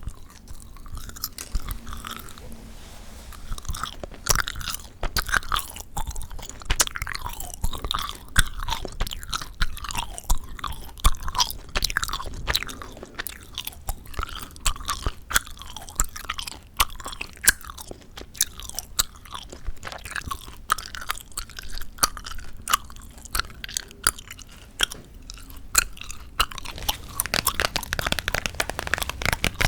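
Chewing gum worked close to the microphone, a steady run of irregular wet clicks and smacks. The clicks come faster and denser near the end.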